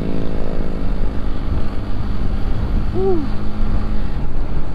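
Honda CB150X's single-cylinder engine running steadily at cruising speed, with heavy wind rumble on the helmet-mounted microphone. A short rising-and-falling tone sounds about three seconds in.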